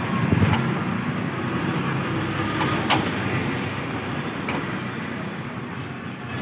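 Steady street traffic noise, with a few light clicks and knocks from parts of an air-conditioner indoor unit being handled.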